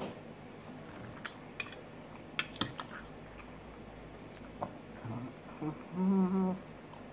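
A man eating tortellini pasta: quiet chewing and mouth sounds, with a few sharp clicks of a metal fork against the bowl. About six seconds in comes a short hummed "mm", the loudest sound.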